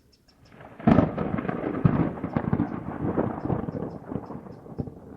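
Thunderclap close by: a sharp crack about a second in, a second crack soon after, then rolling rumble that slowly fades.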